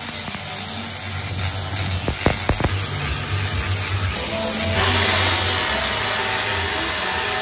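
Tesla coil sparks discharging as a loud, noisy electric buzz, with a few sharp cracks a little over two seconds in. The buzz grows louder and brighter about five seconds in.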